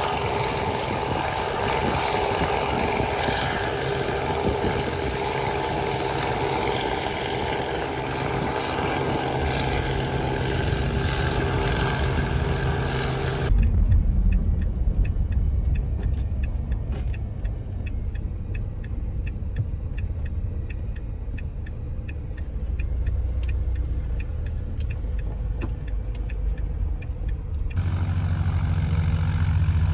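A light helicopter hovering, its engine and rotor a steady drone, for about the first half. It then cuts abruptly to the low rumble of the camper van's engine and road noise heard from inside the cab while driving.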